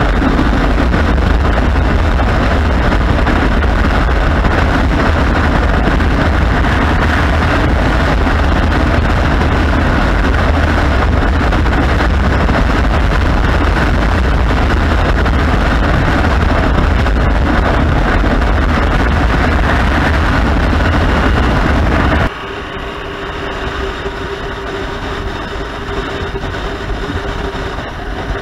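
Motorcycle riding at speed: loud rushing wind and engine noise. About 22 seconds in it drops suddenly to a quieter, steady engine hum with a single held tone.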